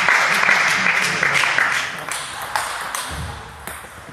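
Applause, fading out about two seconds in, then scattered clicks of a table tennis ball in play.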